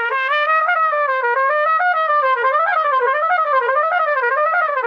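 Trumpet played slurred in one unbroken breath: a stepwise run up and down, then quicker repeated up-and-down turns of a few notes, showing fast valve fingering.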